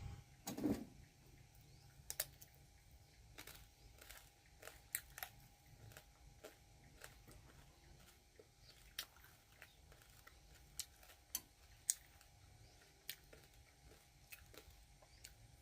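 A knock about half a second in, then scattered, irregular small clicks and ticks against quiet background noise.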